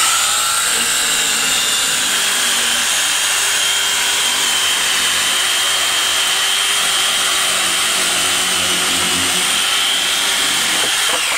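DeWalt DW390 electric alligator saw, with two reciprocating blades, cutting steadily through a wooden panel. It starts with a rising whine as the motor spins up, then runs at an even, high-pitched buzz throughout.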